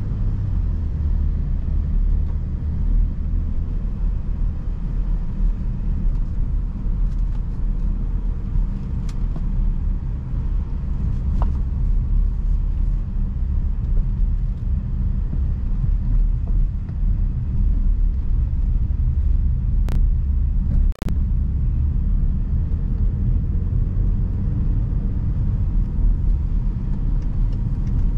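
BMW X5 being driven: a steady low rumble of engine and road noise, with two short sharp clicks about two-thirds of the way through.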